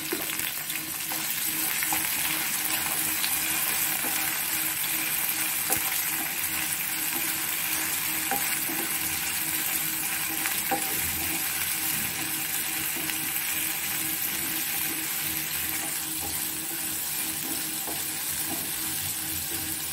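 Chopped onions sizzling steadily in hot oil in a pan while a wooden spatula stirs them, with a few light taps and scrapes of the spatula on the pan.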